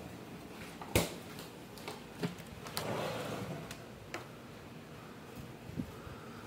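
A freezer door shutting with a sharp thump about a second in, followed by several lighter clicks and knocks of wooden galley cabinet doors being opened and handled.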